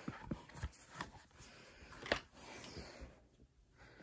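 A few light clicks and knocks of small objects being handled and set down, the sharpest about two seconds in, with soft rustling between them.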